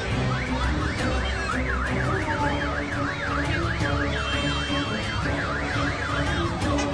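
Siren sounding in a fast yelp, its pitch rising and falling about three times a second, starting about a second in and stopping just before the end.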